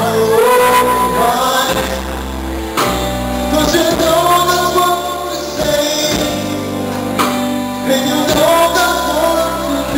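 Live band playing a song, with sung vocals over a drum kit and instruments.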